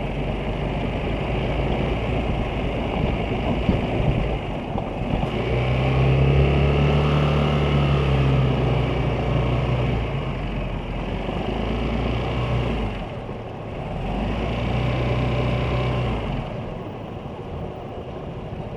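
Vespa GTS 300 scooter's single-cylinder four-stroke engine running on the move. It pulls harder twice, about six seconds in and again near the end, rising then falling in pitch, and settles to a lower, quieter note in the last couple of seconds.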